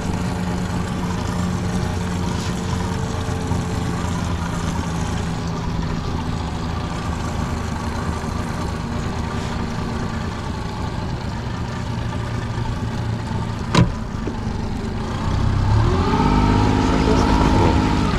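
Honda 30 hp four-stroke tiller outboard running steadily at low trolling revs. There is a sharp click about 14 seconds in, then the engine's pitch rises and it runs louder near the end.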